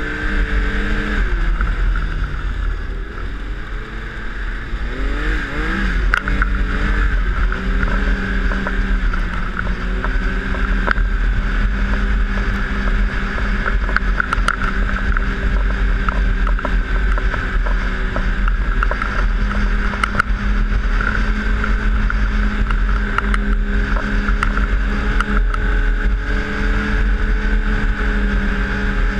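Yamaha snowmobile engine running under the rider at trail speed. Its pitch drops in the first couple of seconds as the throttle eases, climbs again about five to six seconds in, then holds steady. A constant low rumble and occasional knocks from the track and the trail run underneath.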